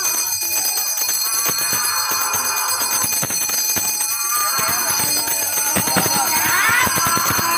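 Ritual bells ringing in quick, irregular strokes, with voices calling out over them near the end.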